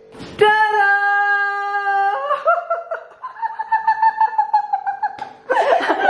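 A young woman's voice holds a long high-pitched cry for about two seconds, then breaks into giggling laughter.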